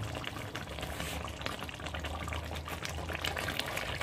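Chicken curry gravy simmering and bubbling in a heavy-bottomed pan, with steady small pops and crackles, while a spatula stirs through it toward the end.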